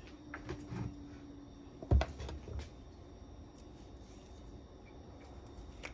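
Light handling clicks while seasoning food on a kitchen counter, with one sharp knock about two seconds in.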